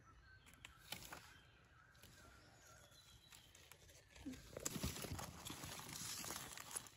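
Dry fallen leaves rustling and crackling on the forest floor as mushrooms are cut and picked by hand. Faint with a few light clicks at first, then louder, busier rustling from a little past halfway.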